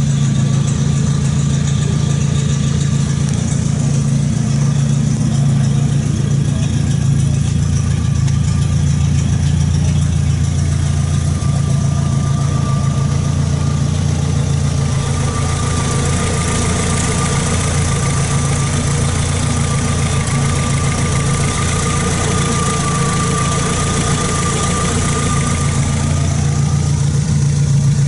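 Fairmont A4-E railroad gang car's engine idling steadily, with a thin steady whine above the engine note.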